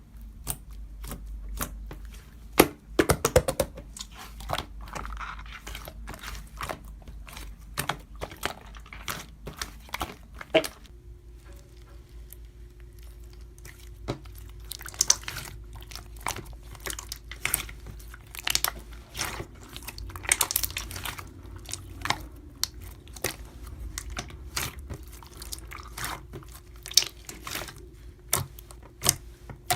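Hands pressing, poking and stretching slime: a rapid run of sticky clicks, pops and crackles, some sharper and louder than others. A faint steady hum sits underneath from about a third of the way in.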